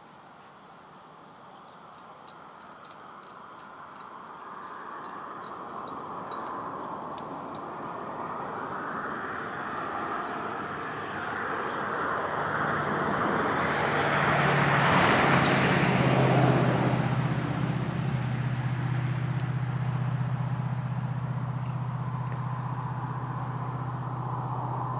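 A motor vehicle's engine grows louder over about fifteen seconds, then runs on steadily with a low hum.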